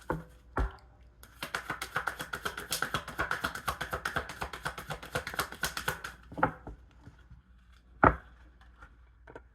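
A deck of tarot cards being shuffled by hand, a quick run of soft card clicks for about five seconds, followed by a few single taps as cards are handled, one of them sharper about eight seconds in.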